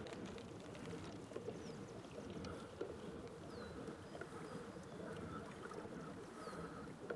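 Faint river-side ambience: a steady low hum with scattered light clicks and a few short falling chirps.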